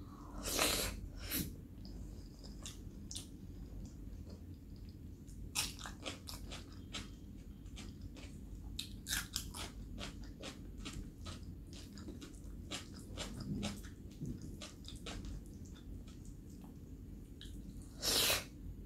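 Close-miked eating: a bite into a piece of puri with aloo gobi about half a second in, then chewing with many short wet clicks and smacks, and another bite near the end.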